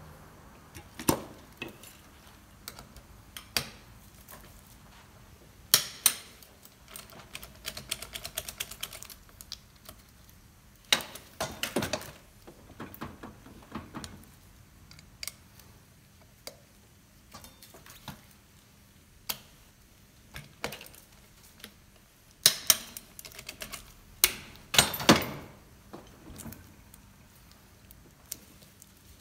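Ratchet wrench clicking in short runs of quick ticks as motorcycle brake disc bolts are tightened in turn, with scattered sharper clicks of metal tools against the bolts and disc.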